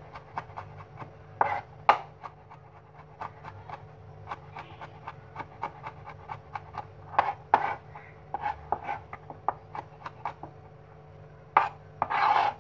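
Kitchen knife mincing garlic cloves on a cutting board: irregular knocks of the blade on the board, several a second, with a denser, louder run of strokes near the end.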